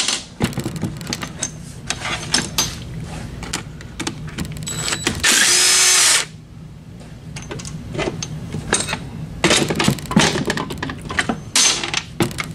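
Cordless impact driver running for about a second, about five seconds in, backing out a 10 mm transmission-case bolt. Scattered metallic clinks and knocks of bolts and tools against the aluminium case come before and after it.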